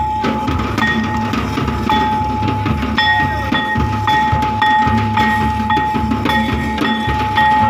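Santal stick-dance music. Hand drums beat a repeating low rhythm under a high held note that breaks off about every half second, with the sharp clacks of dance sticks.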